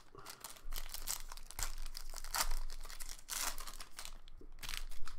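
Foil trading-card pack wrapper being torn open and crinkled in the hands, a run of crackling rustles with louder bursts about halfway through and near the end.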